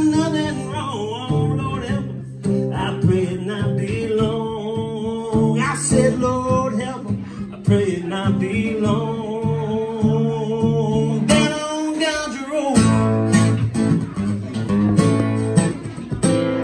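Acoustic guitar strummed, with a man singing long held notes over it. The strums get sharper and more percussive in the last few seconds, as the song closes out.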